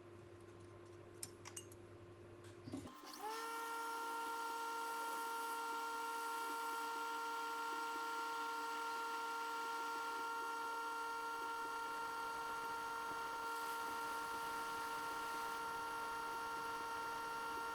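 Hot air rework station's blower switched on about three seconds in. Its whine rises briefly as it spins up, then runs steady, heating the board for CPU removal. A few light clicks come before it starts.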